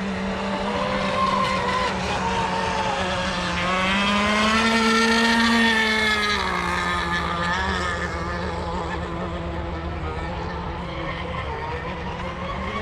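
Radio-controlled racing boats' small engines buzzing at high revs out on the water. The pitch rises and the sound grows louder about four seconds in, then falls away as a boat passes.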